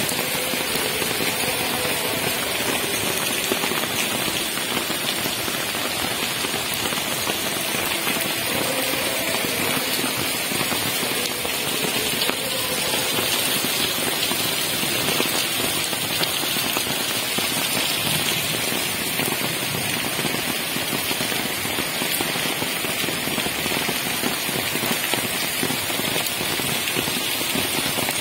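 Heavy rain pouring steadily onto pavement and puddles: a dense, even hiss of drops.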